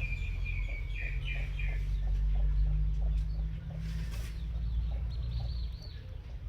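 A run of short, high chirping animal calls in the first two seconds and another brief call near the end, over a steady low rumble.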